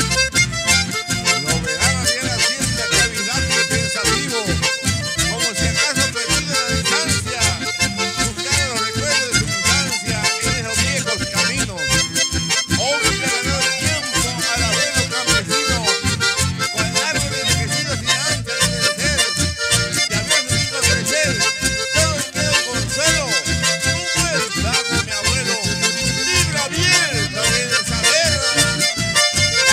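Live band music led by several accordions playing the melody together over a steady, even beat, with no singing.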